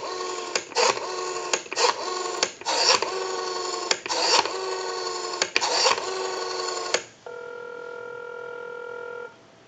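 Western Electric 500 rotary telephone dialing out, heard over the line through a test amplifier: a tone chopped up by bursts of dial-pulse clicks as the digits are dialed. About seven seconds in, a steady ringback tone sounds for about two seconds as the called number rings.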